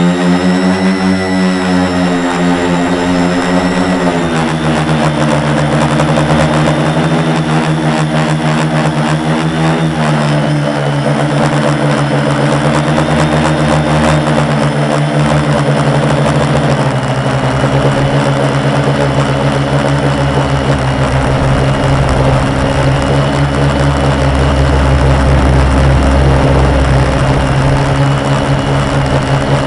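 Four Multistar 2212 920kv brushless motors spinning 10x4.5 propellers on a 450 quadcopter, heard up close from the camera mounted on the frame: a loud, steady buzzing drone whose pitch wavers with the throttle, then drops a step about halfway through and holds steadier.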